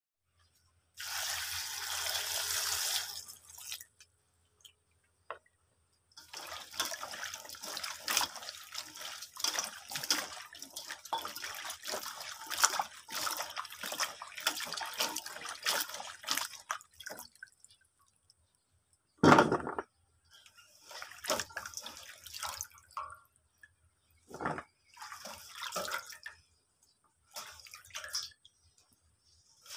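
Cut taro runners (takway) being washed by hand in a stainless steel basin of water: a short rush of water near the start, then repeated small splashes and swishes as the stalks are rubbed and lifted out, with one loud splash or knock partway through.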